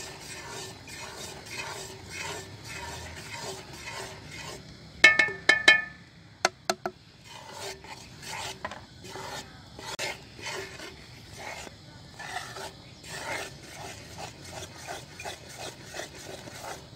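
Long metal slotted spoon stirring roasted flour into sugar syrup in an aluminium karahi, scraping around the pan in steady repeated strokes. About five seconds in come a few loud ringing clinks of metal on the pan.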